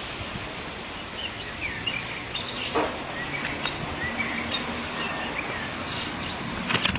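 Outdoor ambience: a steady background hiss with small birds chirping on and off, and a few sharp clicks near the end.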